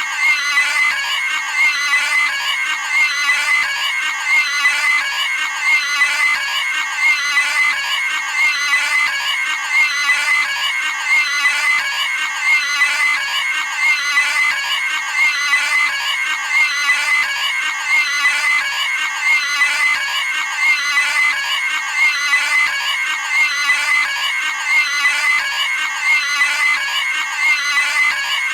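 Cartoon pig screaming sound effect, looped without a break, each scream repeating about every second and a half.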